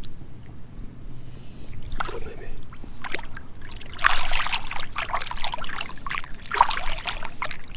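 Water splashing and trickling in short, irregular splashes that grow louder and busier about halfway through.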